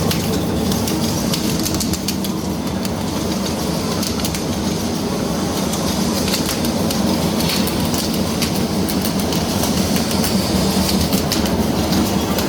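A welding machine for the rebar cages of concrete electric poles, running continuously: a steady mechanical hum with many irregular sharp clicks throughout.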